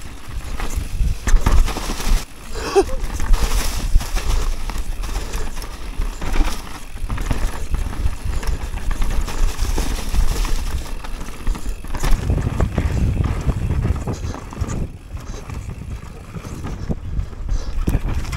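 Mountain bike descending a bumpy dirt forest trail at speed: tyres rolling over dirt, roots and dry leaves, with the bike rattling and clattering over the bumps and a deep rumble that grows louder about twelve seconds in.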